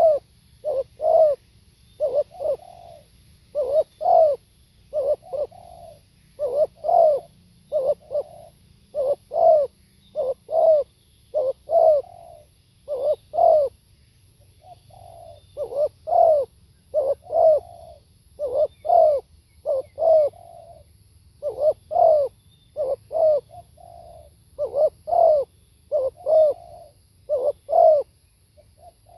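Spotted dove cooing over and over in short phrases of repeated low coos, with a brief pause about halfway through.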